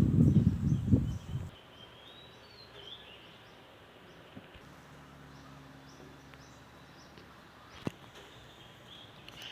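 A loud low rumble for about the first second and a half, then quiet outdoor background with faint high chirping and a single sharp click near the end.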